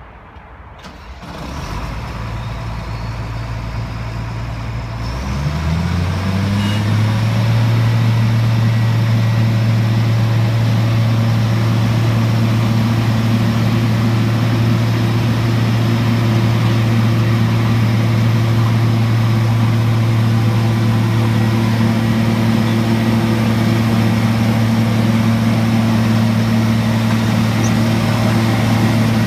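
Diesel engine of a Super 1900 asphalt paver running. About five seconds in it speeds up from a low idle to a higher steady speed and holds there.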